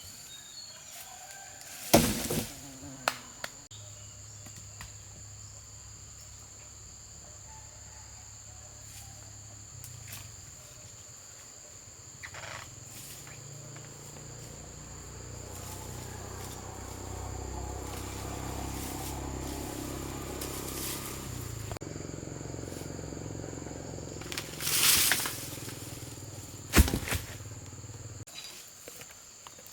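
Steady high-pitched insect drone, with a low hum through most of it and a few sharp knocks, one about two seconds in and two near the end.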